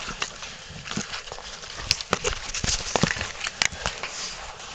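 Cavers clambering over rock: irregular knocks, scrapes and clicks of boots and gear on stone, a few of them sharper and louder.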